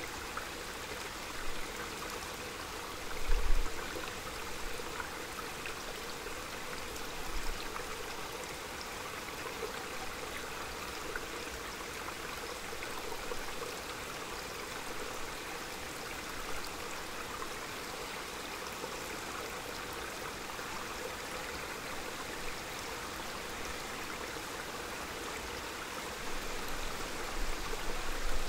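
Small forest stream running and trickling steadily. Brief low rumbles break in, the loudest about three seconds in and a longer one near the end.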